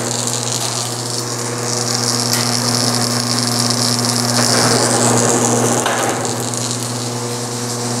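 BWS-50 SAR electric wire stripping machine running steadily, a motor hum under a higher hiss that swells from about two seconds in and eases off around five seconds in, as an inner conductor of 14-2 Romex is rerun through it to strip its insulation.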